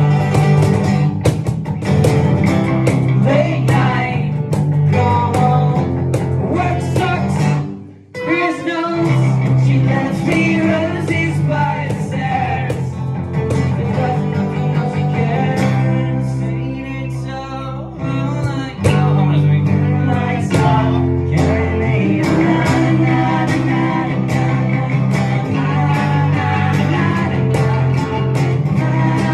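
Live acoustic guitar strummed with a singing voice. The music stops briefly about eight seconds in, then carries on.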